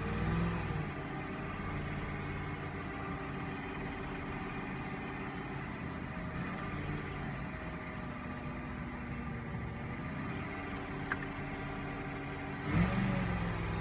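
2005 Cadillac DeVille's Northstar V8 idling rough with a bad misfire, shaking and not firing evenly. Near the end it is revved up briefly.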